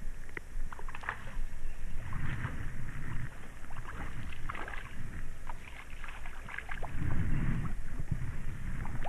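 Shallow creek water splashing and sloshing around someone wading, in many short irregular splashes, over a low rumble that swells twice.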